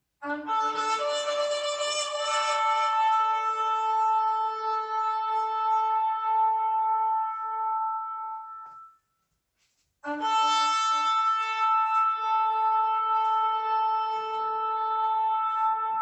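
Shofar sounded in two long, steady blasts. The first holds for about eight and a half seconds and then stops; after a break of about a second, a second long blast begins.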